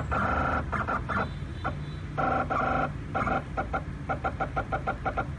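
Stepper motors of a small CNC IC-cutting machine jogging the cutter head at medium speed, making a steady pitched whine in stretches of about half a second. In the second half it breaks into a quick run of short pulses as the keys are tapped.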